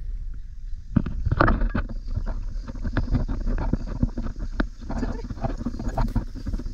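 Footsteps climbing stone steps, irregular knocks over a steady low rumble of wind and movement on the body-worn camera's microphone.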